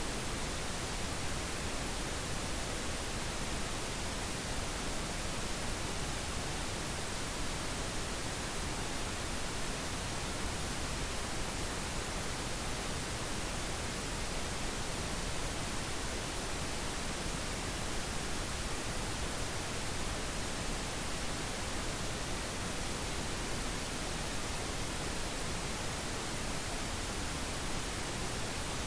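Steady pink noise: an even, unchanging hiss spread across all pitches, with no events or variation.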